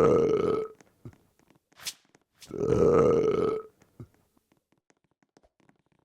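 Two long burps, each lasting about a second, the second following about two and a half seconds after the first, with a short sharp noise between them.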